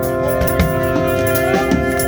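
Live band music: a chord held steady on keyboard, with drums underneath and a few bending notes near the end.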